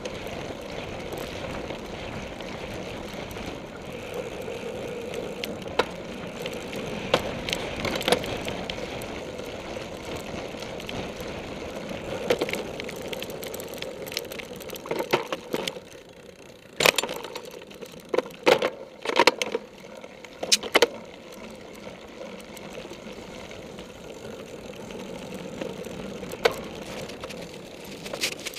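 Cyclocross bike ridden fast over a grass course: steady rolling noise with the bike rattling, and a run of sharp knocks and clatters a little past halfway as it goes over rough ground.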